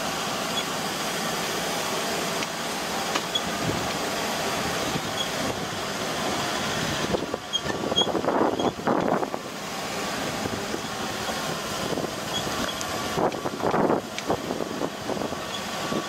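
Hired local truck climbing a rough mountain road: steady engine and road noise, with louder bursts of rattling and bumping about halfway through and again near the end.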